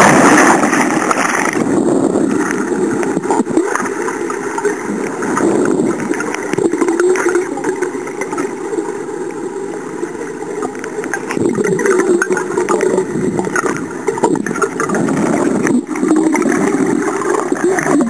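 A loud splash of a body plunging into a swimming pool, then a muffled, fluctuating underwater rush of water and bubbles picked up through the sealed housing of an Olympus µ Tough 8000 waterproof camera during a dive toward the bottom of a deep pool.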